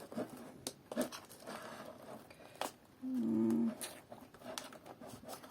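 Light clicks and rustling of stems and skewers being handled. About three seconds in comes a short pitched vocal sound lasting under a second.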